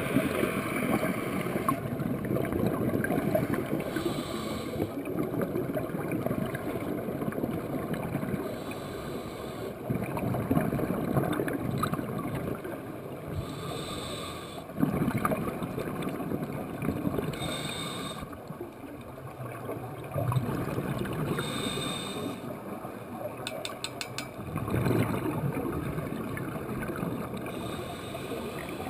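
Scuba breathing through a regulator, heard underwater: every few seconds a burst of rumbling, gurgling exhaled bubbles, with a short hiss of inhalation in the lulls between.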